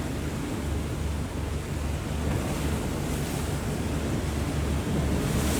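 Strong wind buffeting the microphone in an uneven low rumble, over a steady rush of sea waves.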